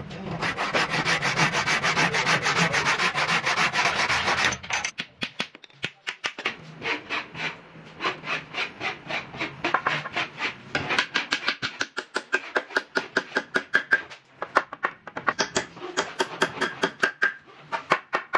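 Hand saw cutting into a square wooden post in fast, steady back-and-forth strokes. From about five seconds in, a chisel is struck repeatedly with a hammer to chop out the sawn notch: a run of separate sharp knocks, about three a second, with short pauses.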